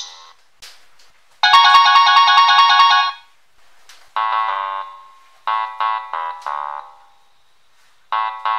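Ringtone tunes played as MIDI through a Nokia 3220 phone's speaker, Android Jelly Bean ringtones in the phone's synthesized sound. A loud dense burst of bright notes comes about a second and a half in, then short phrases of notes separated by pauses.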